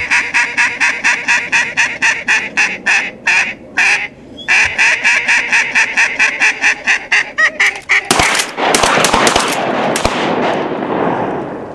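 Loud duck quacking in a rapid, even series of about five quacks a second, breaking off after about eight seconds. Then a quick volley of about five 12-gauge pump shotgun shots over two seconds, the last one fading away slowly.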